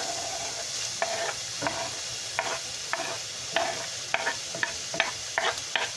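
Chopped onion frying in hot beef drippings in a stainless skillet as it is scraped off a wooden cutting board into the pan: a steady sizzle with sharp scrapes and taps about twice a second.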